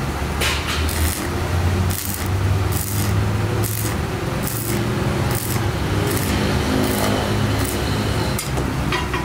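Stick (arc) welding on square steel tubing: the arc crackles and hisses in short irregular spurts, over a steady low hum.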